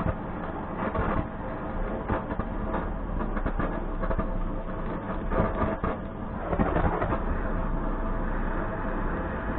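Handheld butane cartridge gas torch burning with a steady hiss as it singes a plucked wild duck, with scattered short crackles over it and a louder stretch about two-thirds of the way through.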